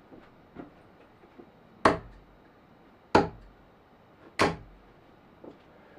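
Three darts hitting a dartboard one after another, about a second and a half apart, each a sharp impact, with a few faint knocks in between.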